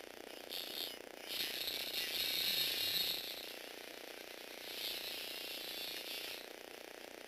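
Small electric motor and plastic gear train of a motorised Lego Technic truck whirring as it drives, in three spells of running, the longest from about one second in to about three and a half seconds.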